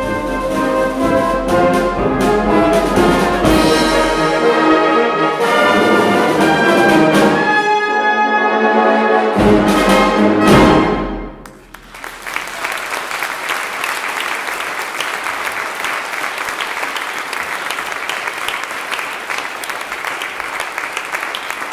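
Brass band with bass drum and timpani playing the closing bars of a march, ending on a final chord with heavy drum strokes about eleven seconds in. After a brief pause, the audience applauds steadily.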